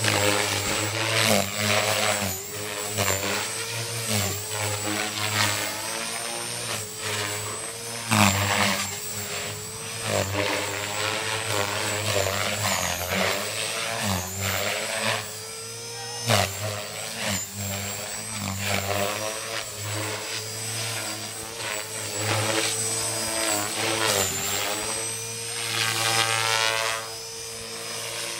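450-size electric RC helicopter in flight: the motor, gears and rotor whine and buzz, the pitch rising and falling again and again as it manoeuvres, over a steady very high whine.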